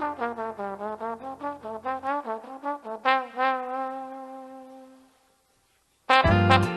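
A solo trombone plays a closing phrase of quick, falling notes over a held bass note, then holds a final long note that fades out. After about a second of silence, a full brass-led dance band comes in loudly near the end.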